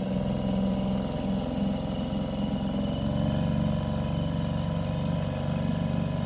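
Boat engine running steadily at a constant speed, with a fast even firing pulse.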